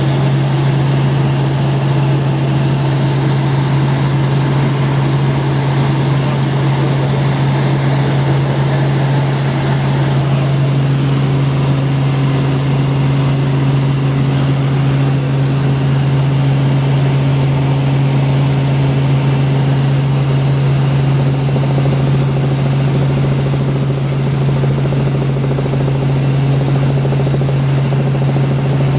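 Helicopter in steady cruise flight, heard from inside the cabin: a loud, even drone of rotor and engine with a constant low hum. A faint higher tone joins about ten seconds in.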